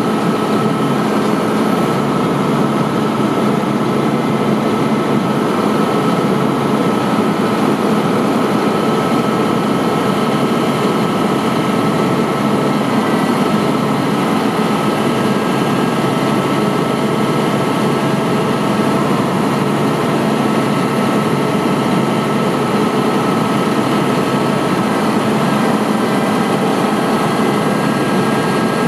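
Volvo WG64 truck's diesel engine running steadily at idle while the truck-mounted knuckle-boom crane is worked, with a thin steady whine over the engine sound.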